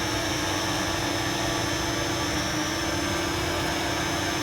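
Parrot Anafi quadcopter's propellers running steadily in flight: an even hum with a thin high whine above it.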